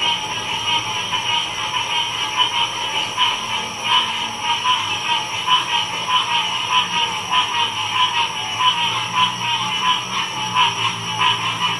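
Frog chorus: many frogs calling at once in a dense, unbroken din of rapid pulsing calls, with a fainter low steady drone underneath.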